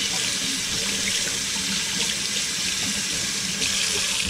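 Kitchen faucet running steadily into a stainless steel sink, the stream splashing over a hand and onto knives at the drain.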